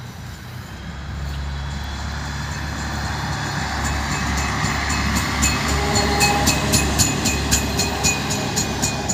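SA108 diesel railbus (PESA 214M) passing close: its engine drone builds as it draws near, then a quick run of clicks, about four a second, as its wheels cross the rail joints.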